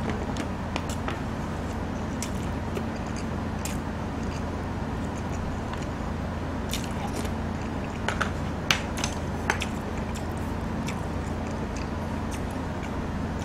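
Close-miked eating sounds: chewing, with scattered sharp clicks of chopsticks and a spoon against bowls and a stone pot, a small cluster of them about eight to nine seconds in, over a steady low hum.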